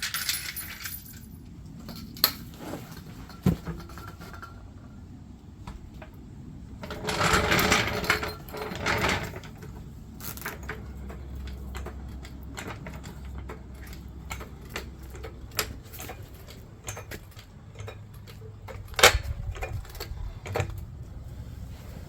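Tool work on a pickup's suspension: scattered metal clicks and clanks, with a louder rattling stretch and a low steady hum partway through.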